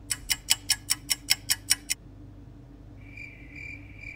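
A clock-ticking sound effect, fast at about five ticks a second, for two seconds. Then from about three seconds in, crickets chirping: a high tone pulsing a little over twice a second. Together they mark hours passing into night.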